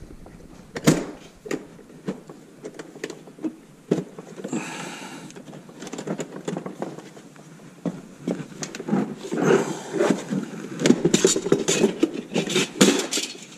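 Handling noises from a fibre-drum dust-collector bin being opened: clicks and knocks as the steel lever-lock ring clamp is released, and a brief rustle about four and a half seconds in. In the last few seconds the lid and its plastic bag are lifted off, with a dense run of clicks, scrapes and crinkling.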